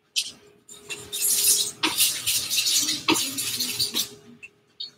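Brisk scrubbing and scraping of painting tools working paint, a run of rubbing strokes with short breaks that dies away near the end.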